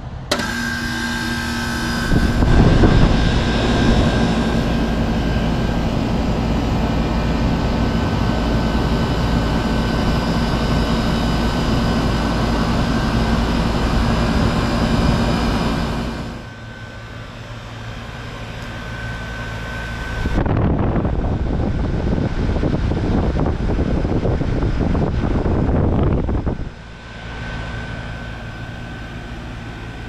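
Outdoor unit of a 2002 Lennox Merit 10 SEER 1.5-ton heat pump starting up in cool mode: it cuts in suddenly right at the start and swells about two seconds later, then runs with a steady hum and a thin high tone. Further on the level drops and rises sharply a few times while it keeps running.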